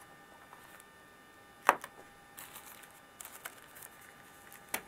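Hands handling a phone's plug-in power adapter and cord in a cardboard accessory box: a sharp knock about 1.7 s in as the adapter is set down, light rustling and small ticks, and a second knock near the end.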